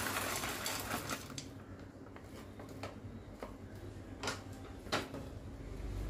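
Raw pumpkin seeds pouring from a plastic bag and rattling into a nonstick frying pan for about the first second, followed by a few scattered light clicks.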